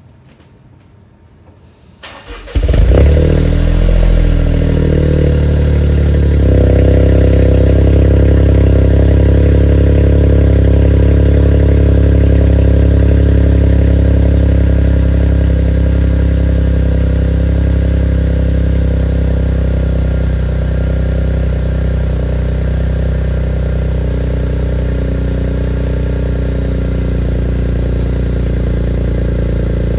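2023 Toyota GR Corolla's turbocharged 1.6-litre three-cylinder engine cold-starting through its triple-outlet exhaust: a brief crank about two seconds in, a loud flare as it catches, then a steady cold idle. The note shifts a few seconds after it catches, and the idle eases slightly in level.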